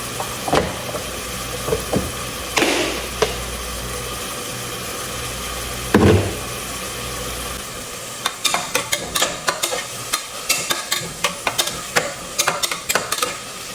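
Onion and spice masala sizzling in a pan while it is stirred, with a few knocks of the spoon early and then a quick run of clinks and scrapes against the pan in the second half. A low steady hum under it stops a little past halfway.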